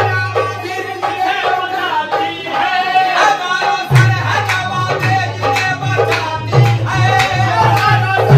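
Live qawwali music: a singer's voice over steady tabla strokes, with a low sustained bass note that drops out briefly in the first half and comes back about four seconds in.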